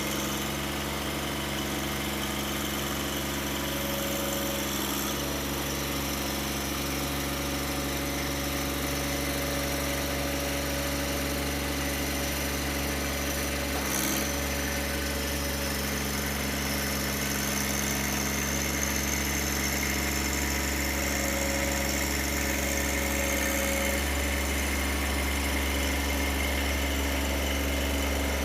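An engine idling steadily, with a light knock about halfway through.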